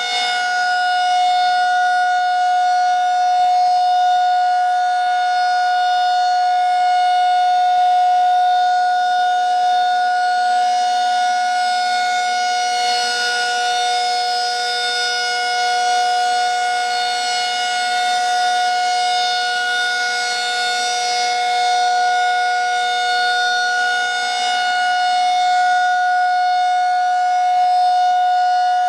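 Federal Signal 2001-SRN rotating civil defense siren sounding its steady alert signal: one held pitch that does not rise or fall. It grows slightly louder and softer as the rotating horn turns.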